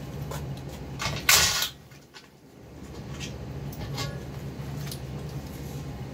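Aluminium storm bar being lifted off its window brackets: light knocks and one loud, short metallic clatter about a second and a half in, over a steady low hum.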